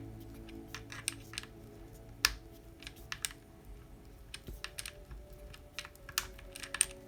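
Irregular small clicks and taps of hard plastic and metal RC car parts being handled as a front wheel and its flange nut are fitted onto the axle. One sharper click comes a little over two seconds in.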